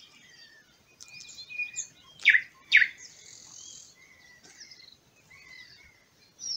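Wild songbirds calling and singing: scattered short chirps and whistles, the loudest two sharp calls about half a second apart a little over two seconds in.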